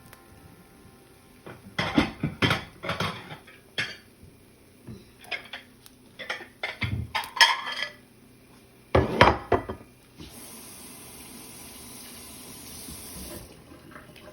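Dishes and cutlery clattering in three bursts of sharp knocks, then a steady rush of running water for about three seconds near the end.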